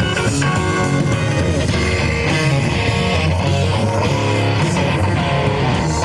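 A rock band playing live: electric guitars and bass guitar in an instrumental passage, with no vocals.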